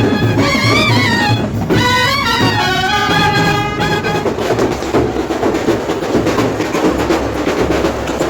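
Music: a wavering melody over drums that drops out about four seconds in, leaving dense, rapid drumming.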